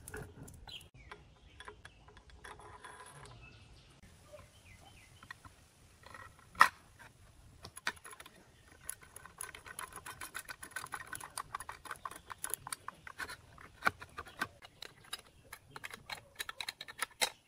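Quick, rapid metal clicking and tapping as a steel clamp is fitted to a machine table and its bolt turned with a hand wrench, with one sharp metal knock about six and a half seconds in.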